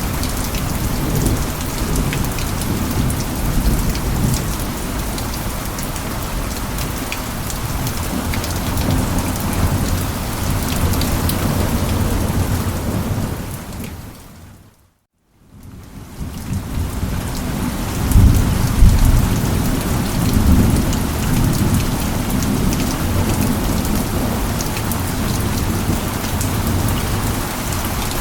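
Steady heavy rain with low rolling thunder underneath, the rumble loudest a few seconds after the middle. About halfway through, the rain fades briefly to silence and fades back in, an edit or loop point in the recording.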